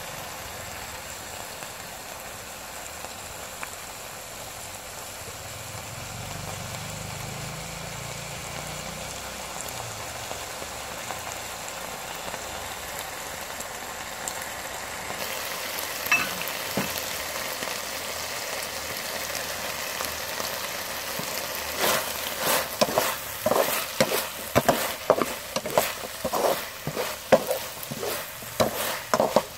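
Corn kernels with minced pork and carrots sizzling in a metal wok; about halfway through the sizzle grows louder and brighter. In the last several seconds a wooden spatula stirs and scrapes through the food in quick repeated strokes.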